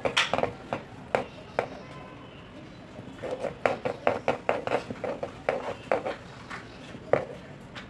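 Play dough being rolled into a rope under a palm on paper over a table: a run of short soft taps and rubbing, pausing for about a second and a half before picking up again.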